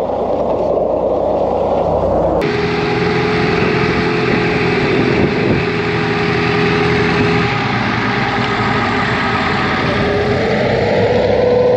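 Alvis Stalwart amphibious 6x6 truck's engine running steadily as the vehicle swims. The sound changes abruptly about two seconds in, and the engine's pitch rises near the end as it revs up.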